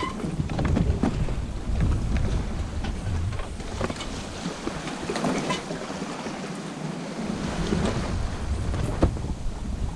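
Wind buffeting the microphone over the rush and splash of waves against a sailing yacht's hull, the low wind rumble easing for a moment about halfway through. A few faint knocks from the boat's gear are heard.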